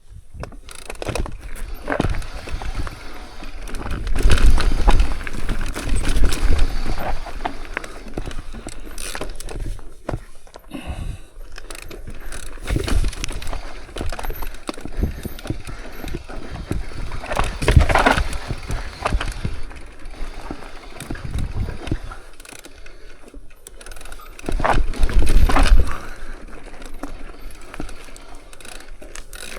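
Mountain bike riding over a rocky trail: tyres on rock and dirt, with the bike rattling and clicking throughout. Several loud low rumbles come on the microphone a few seconds in, near the middle and near the end.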